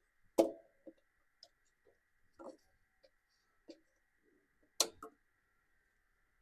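A few sparse, sharp clicks and knocks of tools and parts being handled, with two louder knocks, one about half a second in and one near five seconds in.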